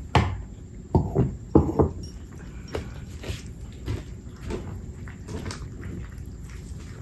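A handful of short knocks and thumps in the first two seconds, then fainter scattered ticks and light rustling.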